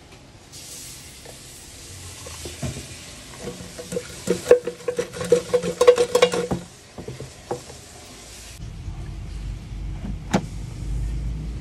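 Frozen breaded chicken pieces rattling and clattering in an air-fryer basket, a burst of rattles in the middle over a steady hiss. About ten seconds in, a single sharp click as the basket is pushed into the air fryer, with a low hum under it.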